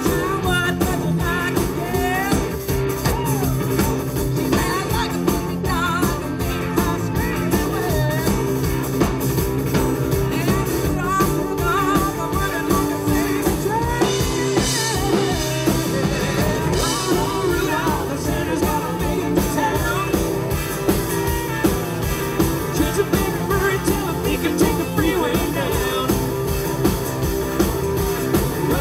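Live band music: a woman singing lead into a microphone over strummed acoustic guitars and a drum kit.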